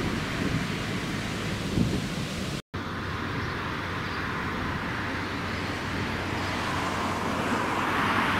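Wind buffeting the microphone as a rumble over a steady outdoor background noise. A brief dropout about a third of the way in, after which a low steady hum sits underneath.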